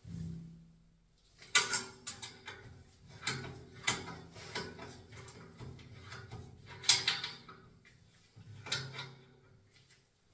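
Adjustable pliers working the metal union nuts of a radiator valve as they are tightened: a series of irregular metallic clicks and knocks, the loudest about seven seconds in.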